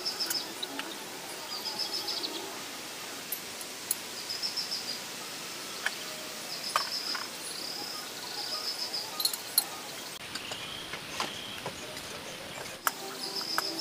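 Birds chirping in short, rapid trills that repeat every second or two, with a few sharp clicks over steady background noise.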